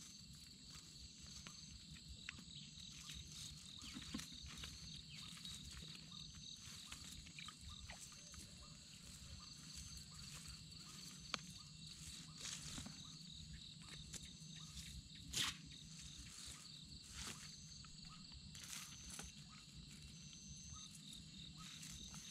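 Faint evening chorus of insects such as crickets: a steady rapid pulsing high trill with a second call repeating in short bursts above it. Occasional soft knocks and rustles, the loudest about 15 seconds in.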